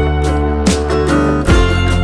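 Background music led by a plucked, strummed guitar, with a steady bass beneath.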